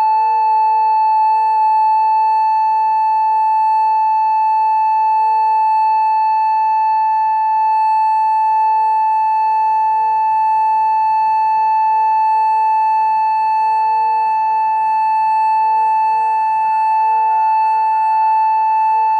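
Homemade mini electronic warning siren, styled on an ACA Alertronic AL-1000, sounding a steady single-tone alert of about 850 Hz from a SiraTone controller through an amplifier and speaker. The tone holds one pitch with no rise or fall, loud and unbroken.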